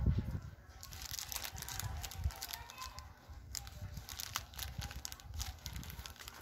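Handling noise from a hand-held phone being moved close to its microphone: scattered light crackles and rustling, with a low rumble at the start.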